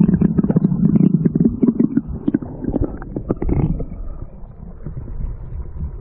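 Muffled rushing and bubbling of a shallow stream heard from under the water, with knocks and splashes of hands and fish close by as a small rainbow trout is released. It is loudest for the first couple of seconds, then settles to a lower rumble after about four seconds.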